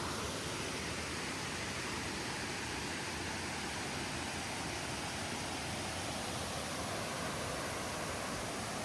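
Running water of a stream or small falls, a steady even rush.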